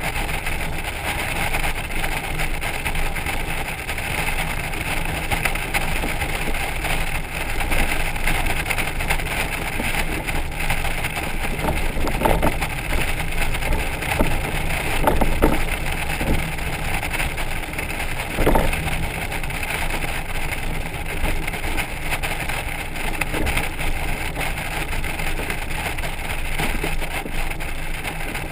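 Steady road-speed drone of a Honda Gold Wing motorcycle towing a trailer, heard from a camera on the trailer: wind rush and road noise over the motorcycle's engine. A few brief knocks come about 12, 15 and 18 seconds in.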